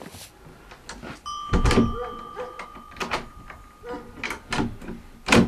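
Iron key and latch being worked in a wooden door: a series of metallic clicks and clanks, with a loud knock about a second and a half in and another near the end, and a thin steady high tone held for a couple of seconds.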